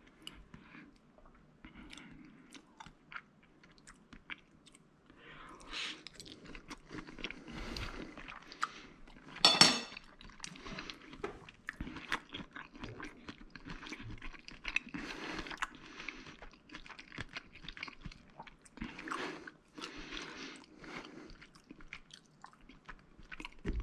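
Close-up chewing of a mouthful of spaghetti with prawns in cream sauce, full of small irregular clicks. One sharp clack about ten seconds in is the loudest sound.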